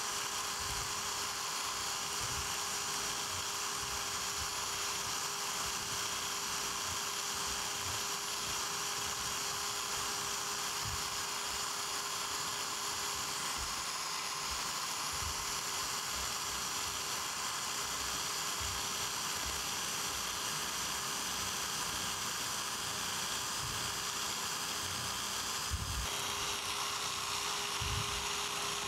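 Biax electric power scraper running steadily with a constant buzz, its blade scraping the cast-iron way of a boring mill saddle, with small irregular knocks from the strokes. The ways are being step scraped to take metal off one end and bring the surface into plane.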